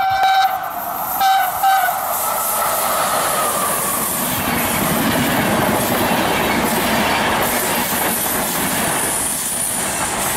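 Electric locomotive-hauled passenger train at a station. Its horn sounds twice, a blast that ends about half a second in and a short one about a second and a half in. Then the train runs past close by with steady wheel-on-rail noise and clatter.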